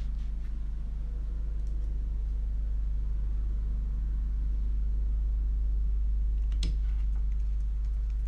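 Steady low hum throughout, with one sharp click about two-thirds of the way through and a few faint ticks, as a screwdriver works a screw into the plastic chassis of a Tamiya TT-02 kit.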